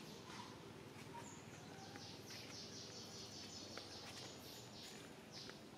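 Faint outdoor ambience with birds chirping: rapid series of short, high, falling notes, strongest in the middle of the stretch, over a low steady hiss.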